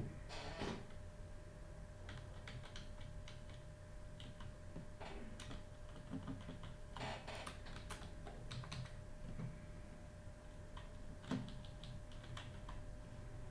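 Computer keyboard being typed on: faint, irregular key clicks over a faint steady hum.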